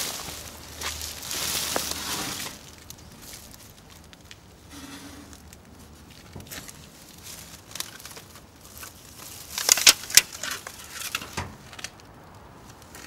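Plastic rubbish bags rustling and crinkling as they are handled and pressed, with a run of sharp crackles about ten seconds in.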